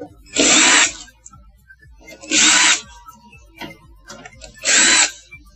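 Small 1/8 HP water-dispenser compressor humming in three short bursts about two seconds apart, trying but failing to start: the compressor is locked or seized.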